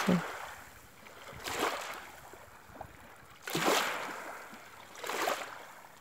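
Small sea waves washing onto a sandy beach: three soft swells of surf hiss that rise and fade, about two seconds apart.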